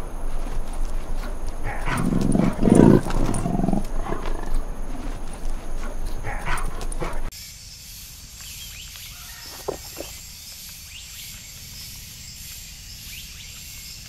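Sri Lankan leopard growling, loudest about two to four seconds in, amid rough rustling. About seven seconds in this cuts off to a much quieter, steady high hiss with a few faint ticks.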